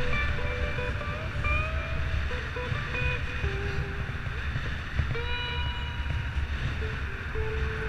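Wind rushing over a helmet-mounted camera microphone while cycling at speed, a steady low rumble. Music with a melody of held notes carries over it.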